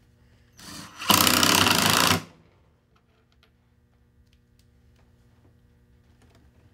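Cordless impact driver with a Phillips bit driving a screw into wood: a short trigger blip about half a second in, then about a second of rapid hammering rattle as the screw goes home.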